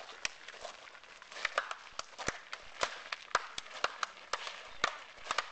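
Footsteps and shuffling of several people moving slowly, heard as irregular sharp taps and clicks with faint rustling between them.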